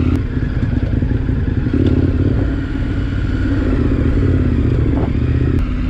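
KTM 1090 Adventure's V-twin engine running steadily on a dirt trail, with a couple of sharp clicks, one just after the start and one near the end.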